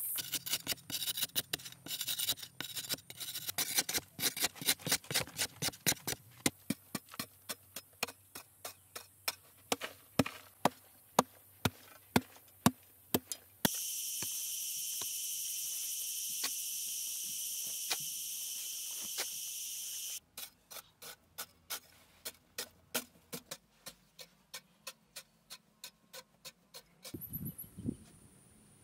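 A hand hoe chopping into hard, dry soil again and again, about two blows a second, as a well pit is dug. A steady high insect drone runs over part of it, and there are a couple of dull thuds near the end.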